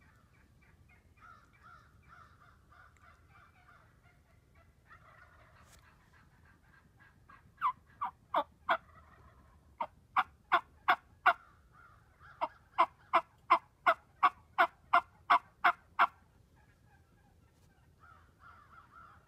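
Turkey yelping: a series of sharp, evenly spaced yelps, about three a second, in three runs with short pauses between them, the last run the longest.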